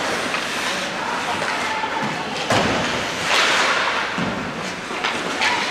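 Ice hockey play: skates scraping on the ice, with one sharp knock about two and a half seconds in and a louder stretch of scraping noise a second later.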